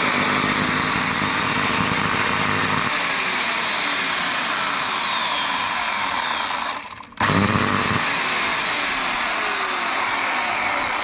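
Ryobi ECS-2040 electric chainsaw running at full speed. It stops briefly about seven seconds in, then is triggered again and runs on. The owner vaguely suspects its motor brushes are worn.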